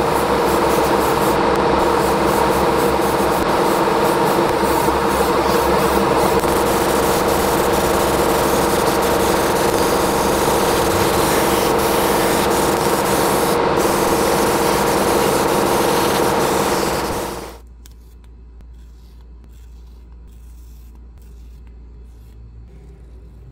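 A power tool running steadily, a hiss over a humming motor tone, then switching off abruptly about seventeen seconds in, leaving a faint low hum.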